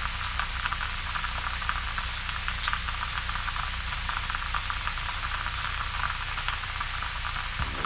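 Typing on an EO87 mechanical keyboard with Kailh Cream linear switches (75 g springs, switch films, Krytox 105 oil) and Permatex-greased Equalz stabilizers: a quick, steady run of keystroke clacks over a faint hiss.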